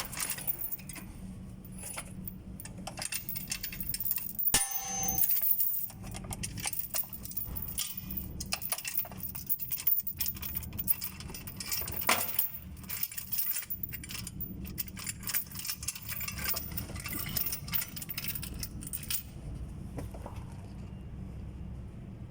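Repeated metallic clinks, rattles and clangs of tools and steel parts as a Toyota Hilux gearbox is worked loose onto a transmission jack, with one ringing clang about four and a half seconds in. The clanking dies away near the end, over a low steady hum.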